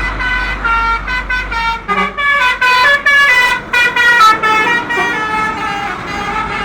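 Bus 'telolet' horn, a multi-tone musical air horn, playing a quick tune of stepping notes, several pitches sounding together, loudest in the middle.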